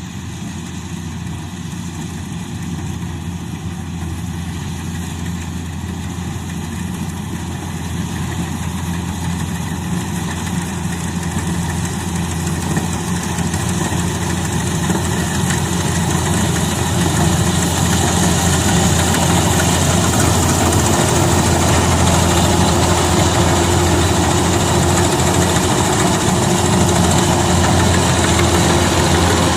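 Rice combine harvester engine running steadily, growing gradually louder.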